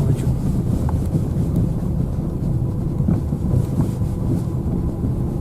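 Car cabin noise while driving: the steady low rumble of the engine and tyres on a snow-covered road, with a few faint rattles.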